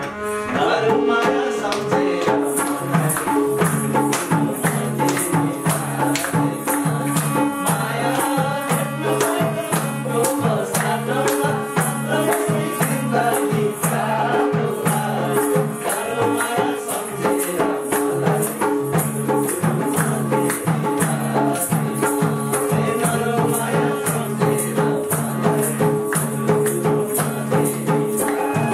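Nepali dohori folk band playing an instrumental passage: a hand drum keeps the beat under a fast, even jingling rhythm and a repeating melody.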